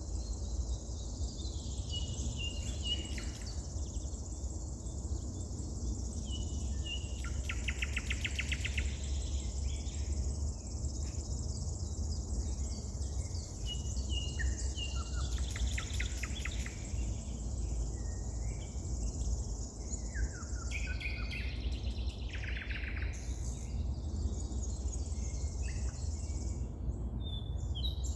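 Wild songbirds calling and singing at intervals, short chirps and quick runs of notes, over a steady high buzz of insects. A low rumble runs underneath.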